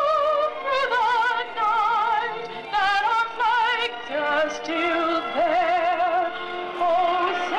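Music with a singer in an operatic style, holding long notes with a heavy vibrato.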